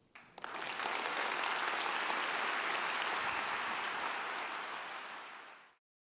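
Audience applauding: the clapping swells up within the first half second, holds steady, then fades and cuts off just before the end.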